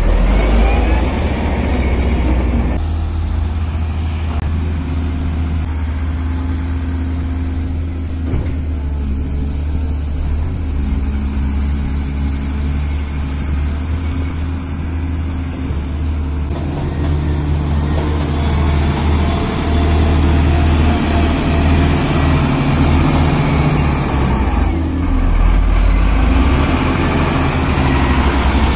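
Hydraulic excavator's diesel engine running under working load, easing off about three seconds in and pulling harder again from about halfway.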